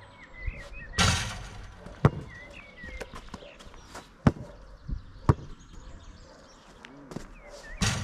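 A basketball striking the backboard and hoop about a second in, then a few sharp knocks as it bounces on the turf-surfaced court. Birds chirp between the knocks.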